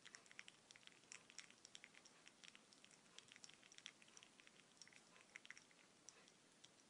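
Faint coffee dripping: a quick, irregular patter of small drips and ticks over a soft hiss.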